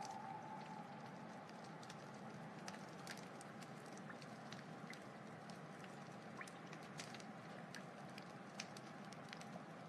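Wood fire burning: a steady soft hiss with scattered small crackles and pops.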